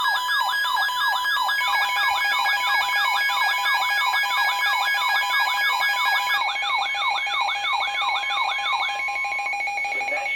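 Electronic siren-like alert tone: a falling sweep repeating about three times a second over steady electronic tones. The sweeps stop near the end, leaving the steady tones sounding.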